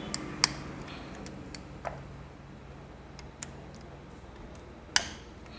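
A handful of sharp, separate clicks and taps from hand tools working on a motorcycle engine, the loudest near the start and near the end.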